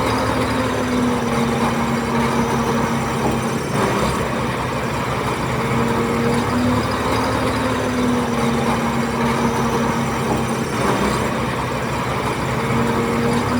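Bulldozer's diesel engine running steadily, with a low humming pitch that dips and briefly breaks twice, about four and eleven seconds in.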